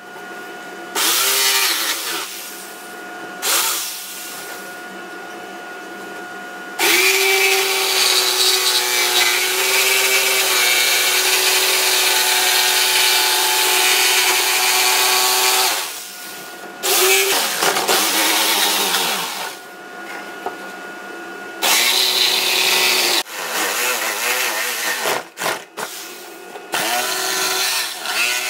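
Corded Ryobi jigsaw cutting through a cedar plank, its motor and blade running in spurts: a couple of short cuts, then one long steady cut of about nine seconds, then several shorter stop-start cuts.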